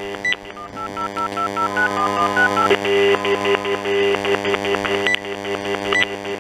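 Panasonic KX-TG3411SX cordless phone handset heard through its speaker: a steady telephone dial tone, then a quick run of about ten keypad touch-tones as a number is dialed, followed by a rapid pulsing tone. A buzzing electronic interference runs underneath, the handset's radio disturbing the camera microphone.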